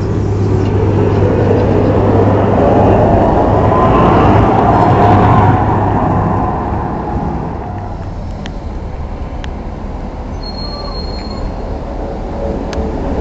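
A Tatra KT4D tram pulling away from the stop: the traction motors whine, rising in pitch as it speeds up, over a deep hum and the rumble of wheels on the rails. The sound peaks about five seconds in and fades as the tram moves off, leaving lower street noise with a few sharp clicks.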